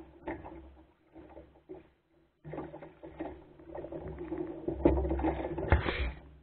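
A small wooden sailing dinghy under way: water lapping and splashing against the hull, with irregular knocks and clatter from the boat, loudest about five to six seconds in.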